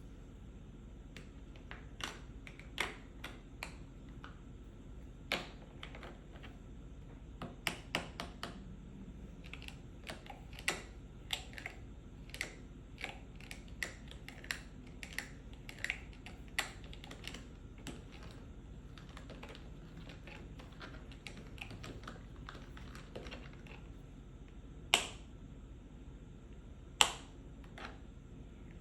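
Light, quick, irregular tapping on a pill box, broken by a pause of several seconds, with two louder single taps near the end.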